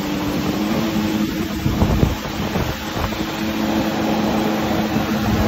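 Jet ski engine running steadily at speed while towing a tube, over the rush of churning wake water and wind buffeting the microphone.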